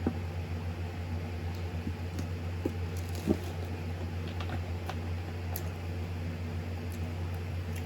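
A person chewing a sandwich, with faint wet mouth clicks and a couple of small ticks about three seconds in, over a steady low hum.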